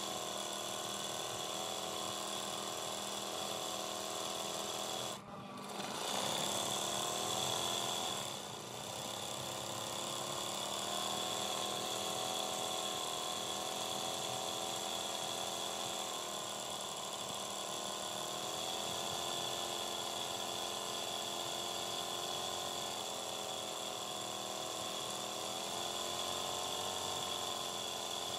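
Electric sewing machine running continuously as it stitches machine embroidery, its motor hum rising and falling slightly in pitch as the speed changes. About five seconds in, the sound briefly drops out and comes back louder for a couple of seconds.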